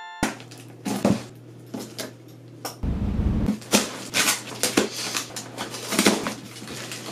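Hands working at a heavily taped cardboard box: scraping, crinkling and tearing, with sharp knocks and a dull thud about three seconds in.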